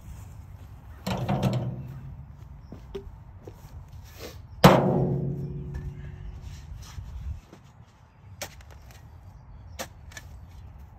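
Two metallic clangs from a steel shovel blade striking something hard, one about a second in and a louder one about four and a half seconds in, each ringing out and fading over a second or two. A few soft knocks follow as the shovel digs into the soil.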